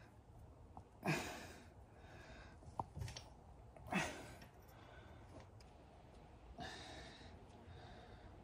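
A man's breathy sighs of effort, three of them, each falling away at the end, as he strains to loosen the oil drain nuts under the motorcycle, with a light click between the first two.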